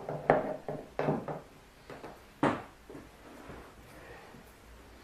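A quick series of knocks and clunks from parts being handled against the plastic kayak, about eight in the first three seconds, then only low background noise.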